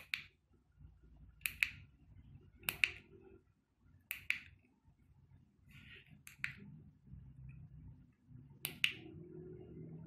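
Sharp clicks, several in quick pairs, repeating every second or two. A low steady hum comes in near the end.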